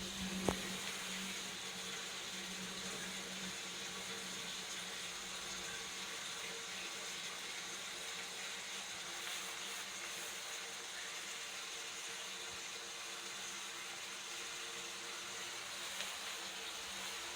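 Steady hiss of water running into a toilet pan from its high-level cistern: a slight leak, which may be meant to happen. A single click comes about half a second in.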